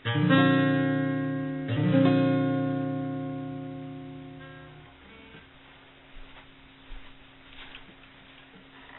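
Cutaway acoustic guitar sounding a Cadd9 chord twice, about a second and a half apart, each chord left to ring and fade out over about three seconds. A few faint knocks follow near the end.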